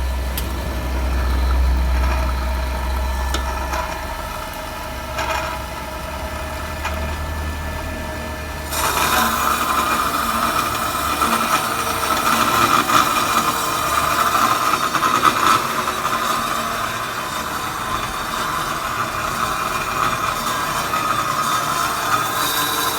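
Automatic pipe-cutting machine running with a low hum; about nine seconds in, a louder, higher steady noise suddenly sets in and continues.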